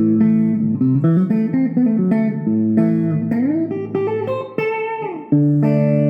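Stratocaster electric guitar with three single-coil pickups, played on the bridge and neck pickups wired in series: a held chord, then a run of single notes, a slide up and back down, and a fresh chord struck near the end.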